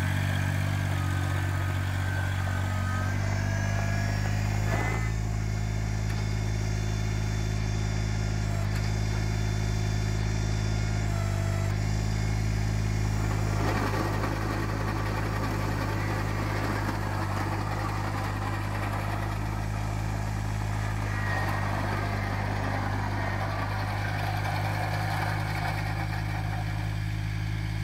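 Kubota BX1860 compact tractor's three-cylinder diesel engine running at a steady speed as the tractor drives about, with a higher whine that rises and falls in the first few seconds.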